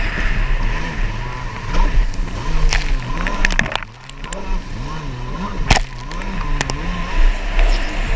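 Stand-up racing jet ski engine revving up and down again and again as the rider works the throttle through the chop, over a hiss of spray and wind. Sharp slaps of the hull and spray hit several times, and the sound briefly goes dull about four seconds in.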